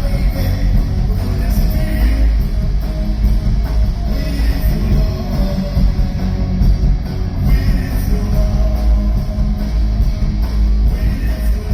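Live rock band playing a song loud, with drums, bass and electric guitar.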